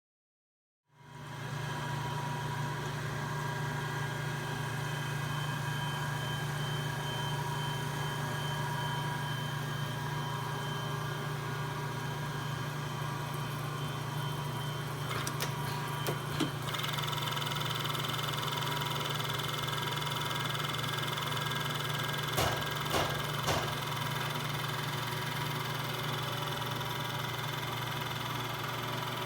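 A Royal Master Gen X profile grinder running: a steady machine hum with a few thin high tones that starts about a second in. There are a few sharp clicks about halfway through and again later, and the high whine shifts a little after the first clicks.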